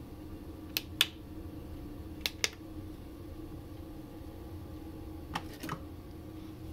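Toggle switches and push buttons on a homemade control panel being clicked: three pairs of sharp clicks spread across the few seconds, over a steady low hum.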